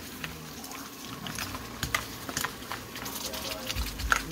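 Scattered light clicks and taps of a utensil against the pan and crab shells as a seafood boil is stirred, with a low rumble starting near the end.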